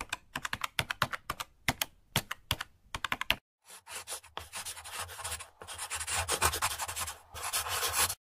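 Computer-keyboard typing sound effect, a run of separate key clicks. After a short pause it gives way to a continuous scratching, like a pen writing on paper, which stops just before the end.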